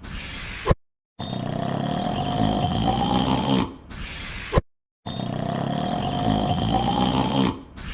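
A man's long, drawn-out yawn playing on a loop, repeating about every four seconds. Each pass ends in a short sharp blip, followed by a brief gap of complete silence before the yawn starts again.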